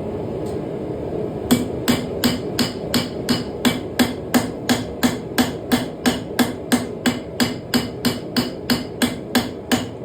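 Hand hammer striking hot leaf-spring steel to straighten out its curve, starting about a second and a half in: a long, even run of ringing blows, about three a second. A steady rush from the running forge sits underneath.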